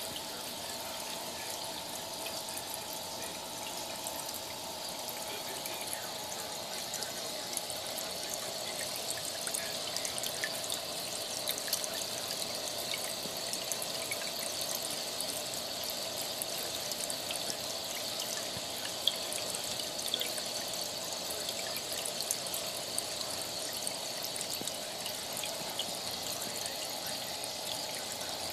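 Aquarium hang-on-back filter's outflow trickling and splashing steadily into the tank water, with scattered small ticks and splashes on top, one sharper about two-thirds of the way through.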